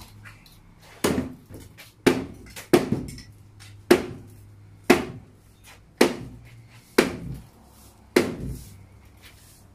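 A hammer striking a white-painted wooden shelf cabinet eight times, about once a second, each blow a sharp crack with a short hollow ring from the wood as the cabinet is broken apart for demolition.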